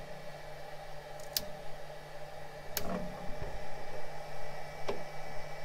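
Steady low hum of a Flashforge Guider II 3D printer running, with three light clicks about one and a half, three and five seconds in, the middle one loudest, as hands and a small tool work at the edge of the build plate.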